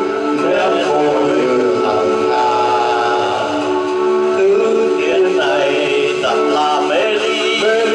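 Several men singing together in a group over instrumental accompaniment with sustained chords.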